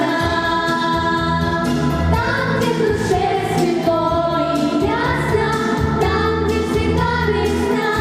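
A girls' vocal ensemble singing a song together over instrumental accompaniment with a steady bass line.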